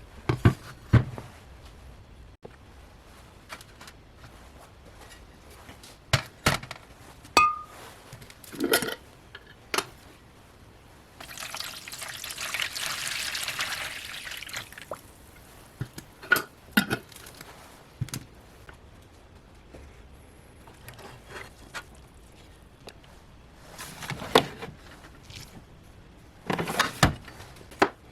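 Scattered knocks and clinks of hard objects being handled and set down. About a third of the way in comes a hissing pour of liquid lasting some four seconds.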